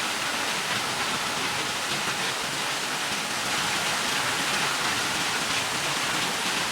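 Wheel sand washing machine at work: a steady rush and splash of water as the bucket wheel turns through the sand-and-water slurry and drains what it lifts.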